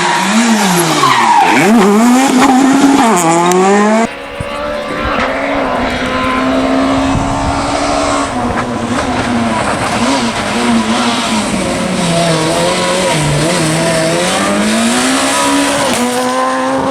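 Super 2000 rally cars' naturally aspirated four-cylinder engines revving hard through the gears, the pitch dropping under braking and climbing again under acceleration, with tyre noise. The sound cuts suddenly a few seconds in to another car's pass, its note dipping and rising again near the end.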